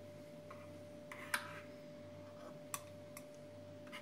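Light clicks of a metal spatula against a baking tray and glass plate as syrup-soaked pastries are lifted out: three distinct clicks about a second and a quarter apart, the first the loudest, over a faint steady hum.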